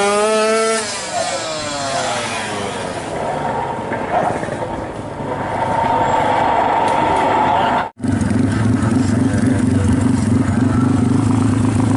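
Drag motorcycle engine revved high at launch, its pitch falling over the next couple of seconds as the bike pulls away down the strip. After a cut about eight seconds in, a Yamaha MX King drag bike bored up to 321 cc runs at a steady, loud idle close by.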